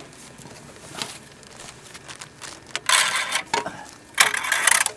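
A cord-pulled chimney damper being opened: a click about a second in, then two short bursts of rattling and scraping, one near the middle and one near the end.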